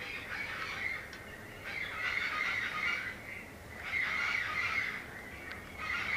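High-pitched animal calls or chatter coming in bursts of about a second each, every couple of seconds, over a steady high tone.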